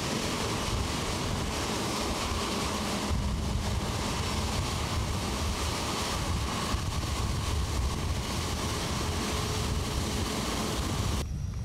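Airbus A350 XWB's two Rolls-Royce Trent XWB turbofan engines running at taxi power as the airliner rolls past: steady jet noise with a low rumble. The engine noise drops away sharply just before the end.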